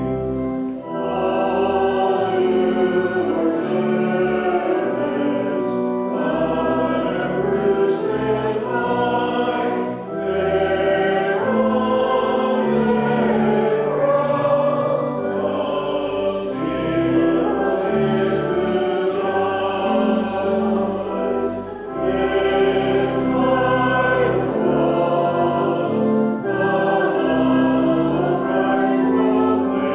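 A congregation singing a hymn together over sustained instrumental accompaniment with held low notes, in phrases with brief breaths between them.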